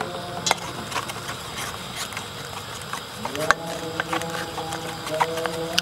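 Wooden spatula stirring egg and flour batter in a stainless steel bowl, knocking and scraping against the metal in irregular clicks.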